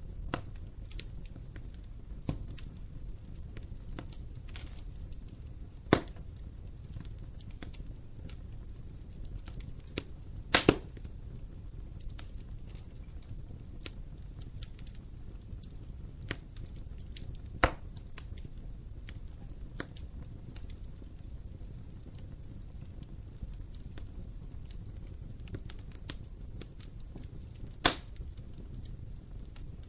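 Wood fire burning in an open fireplace: a steady low rumble with scattered small crackles and a few sharp, loud pops, one of them a quick double pop about ten seconds in.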